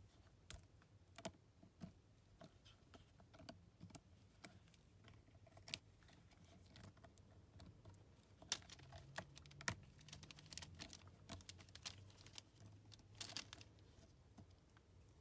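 Faint, irregular clicks and light crackles of fingers peeling the thin skin off a soft squishy toy and handling it on wax paper.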